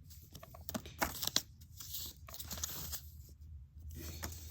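Plastic blind-bag packaging being handled, crinkling and rustling, with several sharp crackles in the first half and again about two seconds in.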